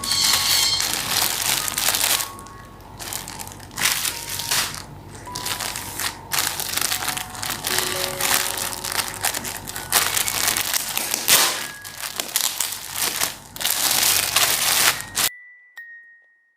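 Packaging being handled and crinkled as a parcel is unwrapped, in irregular rustling and crackling bursts, under soft piano music. The crinkling stops suddenly near the end.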